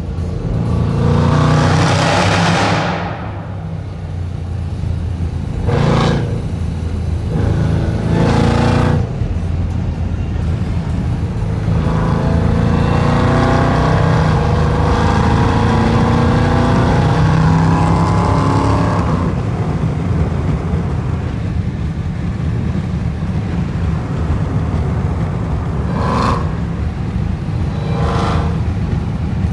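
Jeep Grand Cherokee Trackhawk's supercharged 6.2-litre Hemi V8 through a Gthaus valved cat-back exhaust, heard from inside the cabin: a steady low rumble broken by short bursts of revving, the loudest near the start. From about twelve to nineteen seconds in a long pull brings a slowly rising supercharger whine.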